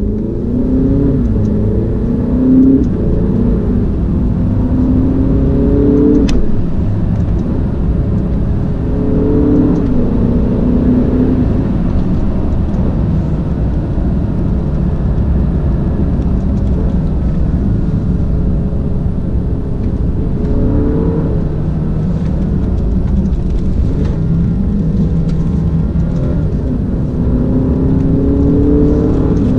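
Alfa Romeo Stelvio's 2.0-litre turbocharged four-cylinder petrol engine, heard from inside the cabin while driving, over road and tyre noise. Its pitch rises several times under acceleration and drops back as the automatic gearbox shifts up.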